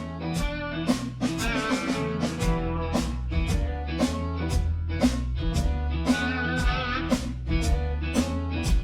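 Background music: a blues-style electric guitar track with bass and drum kit keeping a steady beat.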